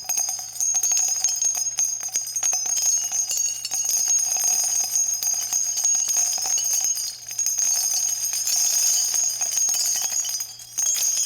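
.50 caliber brass shell casings dropping and falling on one another in a continuous stream of bright metallic clinking and ringing. Two short lulls, about seven seconds in and near the end.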